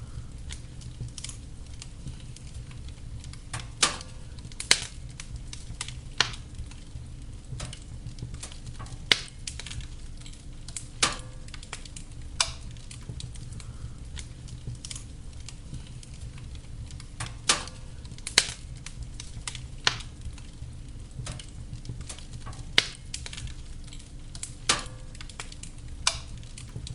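Wood fire burning in a fireplace: a steady low rumble of flames with irregular crackling, and about a dozen sharper pops of burning logs scattered through.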